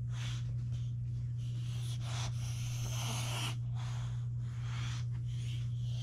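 Boxer dog sniffing in short bursts close to the microphone, its nose near the pretzels, over a steady low hum.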